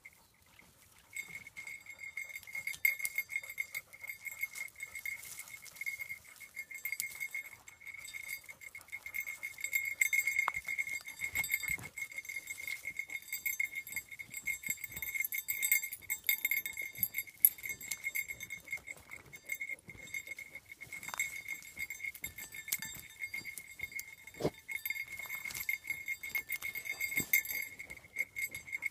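Basset hound whining: a high, steady, wavering whine that starts about a second in and goes on without a break. Twigs and dry pine needles crackle as she noses into a hole in the brush after cornered prey.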